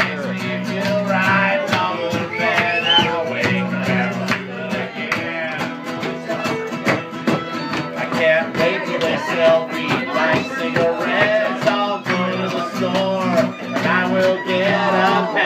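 Live song played on a strummed guitar with a voice singing over it.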